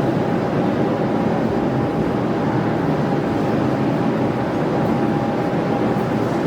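Steady mechanical hum with a thin, constant tone running through it. No separate clicks or strikes stand out.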